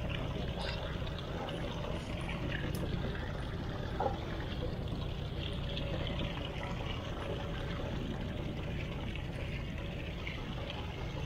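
Steady splashing of a stream of water pouring from a boat's hull discharge outlet into the sea alongside, over a low rumble, with a single knock about four seconds in.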